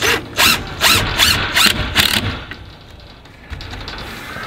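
Cordless drill driving screws into a wooden rack frame in about six short bursts over the first two seconds, each with a wavering high whine; then quieter handling noise.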